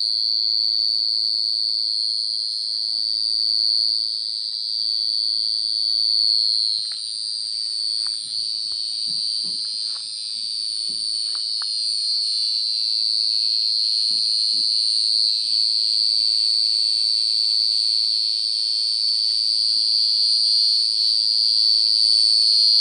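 Black field cricket calling: one steady, high-pitched trill held without a break, growing louder near the end. A few soft footsteps and rustles come through the middle.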